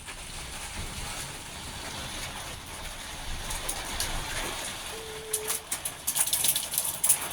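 Hail and rain coming down, a steady hiss of rain with sharp ticks of hailstones striking, getting thicker and louder near the end, with water pouring off the roof. A brief steady tone sounds about five seconds in.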